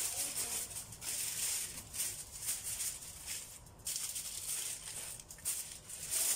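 Aluminium foil crinkling and crackling as gloved hands press and crimp it down around the rim of a stainless steel pot, in irregular bursts with a short pause a little past halfway.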